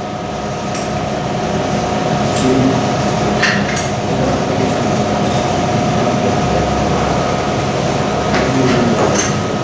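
Steady mechanical hum with a constant tone, broken by a few light clicks and clinks.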